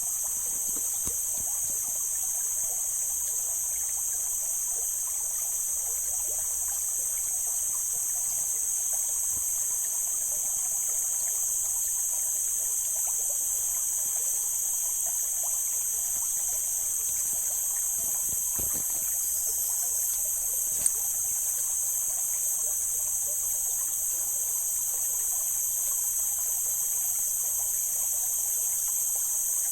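Mountain stream water trickling and flowing steadily over rocks, with a steady high-pitched insect drone above it. One sharp click about two-thirds of the way through.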